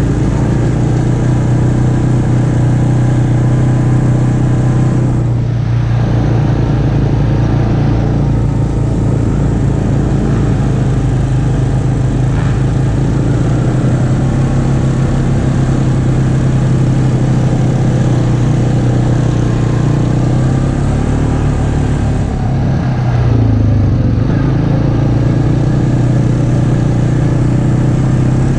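ATV engine running steadily under way. The engine note dips briefly and picks up again about five seconds in, and again about 23 seconds in, as the throttle eases and comes back on.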